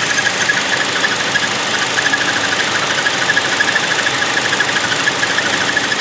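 A 2016 Chevy Sonic's 1.4-litre turbo Ecotec engine idling with the AC on, with a rapid, steady string of little high-pitched squeaks, like bird chirps, over the engine sound. The mechanic takes the squeak for something internal, not a belt pulley, and suspects a clogged PCV system in the valve cover.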